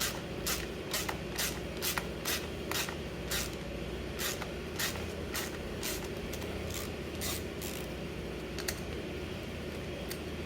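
Short rasping tool strokes, about two a second, thinning out after the middle, over a steady low hum: hand-tool work unfastening the scooter's transmission cover.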